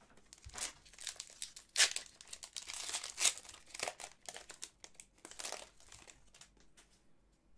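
Crinkly card packaging rustled by hand in quick, irregular crinkles while hockey cards from an opened pack are sorted. The loudest crinkles come about two and three seconds in, and it dies down near the end.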